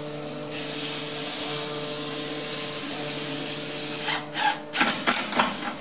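A Phillips screw gun drives a screw through a door hinge into a wooden jamb, running steadily for about three seconds. It is followed by several short, sharp knocks and clicks near the end.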